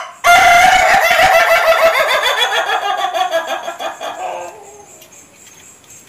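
Rooster crowing: a short loud opening note, then one long drawn-out call that slowly sinks in pitch and fades away after about four and a half seconds.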